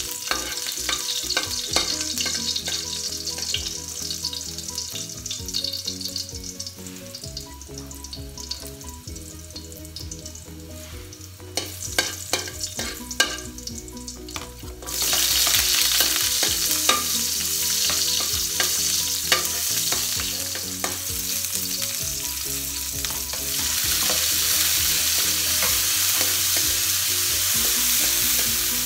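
Chopped garlic sizzling in hot oil in a steel wok, with a metal ladle scraping and tapping against the pan. About fifteen seconds in, sliced onion and tomato go into the oil and the sizzle jumps louder and fuller, carrying on under the stirring.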